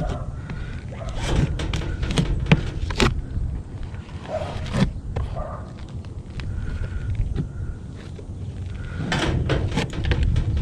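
Scattered knocks, clinks and scrapes of roof tiles being handled and stepped on during tile roof repair work, over a steady low rumble.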